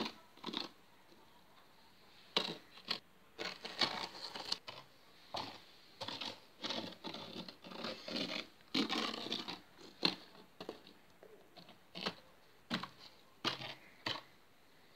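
A plastic toy horse figure tapped and scraped across a gritty, sand-like surface in irregular scuffs and taps as it is moved through a gallop and a jump, with a longer stretch of scraping a little past the middle.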